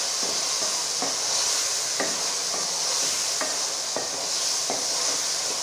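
Radish pods (moongre), tomatoes, onion and green chillies frying in hot oil with a steady sizzle, while a spoon stirring them scrapes and knocks against the metal pot about ten times at an uneven pace.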